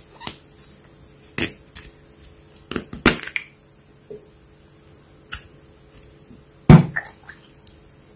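Slime being handled and squeezed: irregular short clicks and pops, with one louder low thud about seven seconds in.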